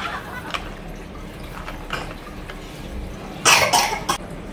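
A person sniffing hard at an open plastic food container: a quick run of sniffs about three and a half seconds in, after a few light handling clicks.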